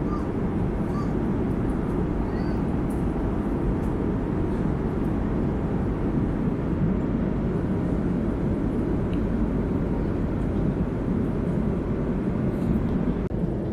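Steady low cabin noise of an Airbus A330-200 in flight, the even rush of engines and airflow heard from an economy seat, with a brief dip near the end.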